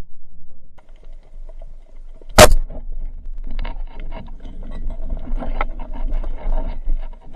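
Underwater around a speargun: one sharp crack about two and a half seconds in, then faint, irregular clicking and crackling in the water over a low rumble.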